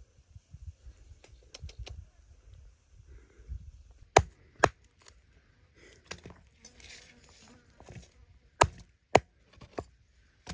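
Meat cleaver chopping through a snake's body onto a round wooden chopping block: two sharp chops about four seconds in, then three more near the end, with lighter knocks between.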